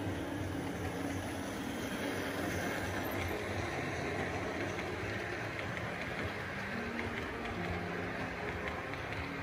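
OO gauge model steam locomotive and coaches running along the track, a steady rolling rumble of the wheels and motor with light clicks.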